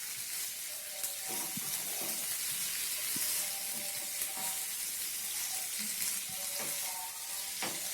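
Chicken pieces and onions sizzling in hot oil in a kadai while a ladle stirs them, with the ladle scraping against the pan. A sharp knock near the end.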